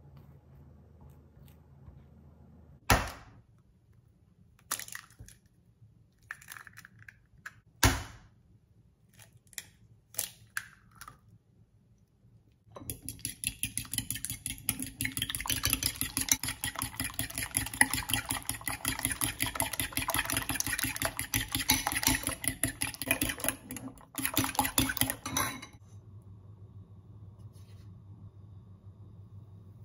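Eggs beaten with a metal fork in a ceramic bowl: rapid, continuous clinking strokes for about thirteen seconds, with one brief pause near the end. Before this come a few sharp knocks and clicks. Afterwards a faint steady hum takes over.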